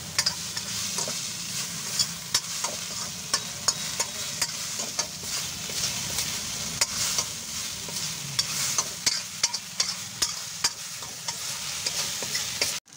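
A steel spoon scraping and clinking against a metal wok as fried rice with Manchurian balls and gravy is stir-fried, over a steady sizzle of frying. The sound stops abruptly just before the end.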